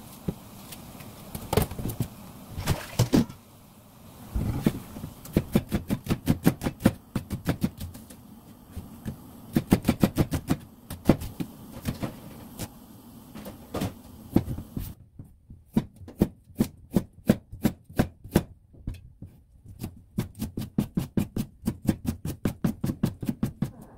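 Chef's knife chopping through vegetables onto a plastic cutting board in quick, even strokes of about three to four a second: slicing onion, then julienning carrot.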